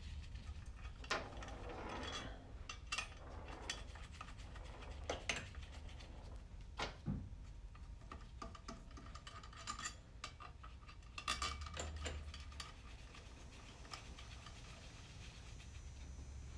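Light metallic clinks and taps, scattered and irregular, as guide pins are worked out of the back cover of a CVT transmission case by hand.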